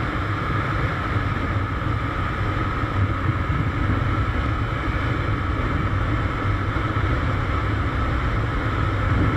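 Motorcycle riding steadily at highway speed, heard from a camera mounted on the bike or rider: an even engine drone mixed with wind and road noise.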